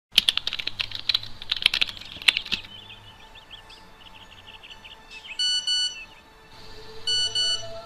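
Mobile phone ringing: two short electronic rings, each a bright tone about half a second long, over faint bird chirps. Before them, a dense run of sharp clicks and chirps lasts a couple of seconds.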